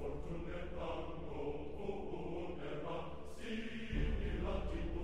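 Background music: a choir chanting over a steady low drone.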